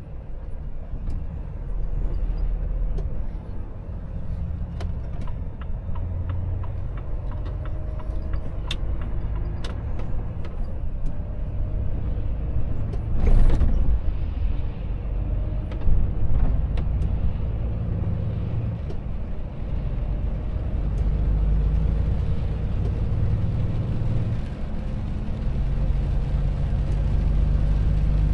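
Volvo FH truck's diesel engine and tyres on a wet road, heard from inside the cab as the truck accelerates, the engine note stepping with gear changes. About halfway through there is a brief rushing whoosh as a vehicle passes close alongside.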